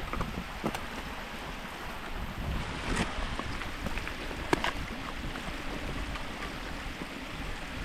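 Wind buffeting the microphone in a steady rumbling rush, with a few sharp, irregular clicks or crunches.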